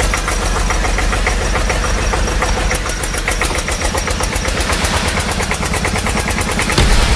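A tractor-type engine running with a fast, even chugging beat, a little louder near the end.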